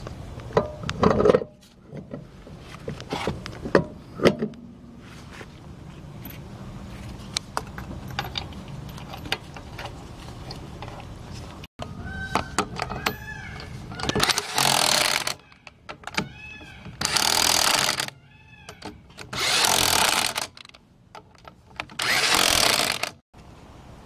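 Impact wrench running the lug nuts onto a Toyota Corolla rear wheel in four loud bursts of about a second each in the second half, its motor whining up and down between them. Before that, clanks and knocks as the wheel is fitted over the studs.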